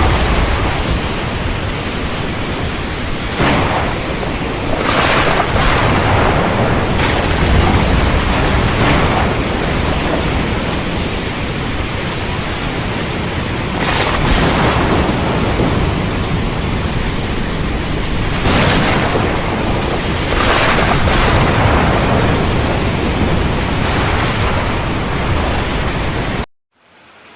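Heavy rain with repeated cracks and rolling rumbles of thunder, about ten strikes spread through. Near the end it cuts off abruptly to a much quieter, steady patter of rain.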